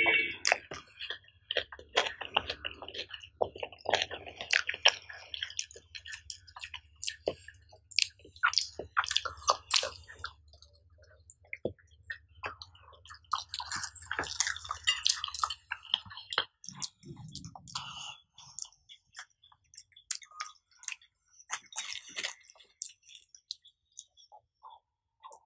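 Close-up chewing of a soft pav bun with bhaji, with many sharp, wet mouth clicks and smacks. A low hum runs underneath and stops about two-thirds of the way through.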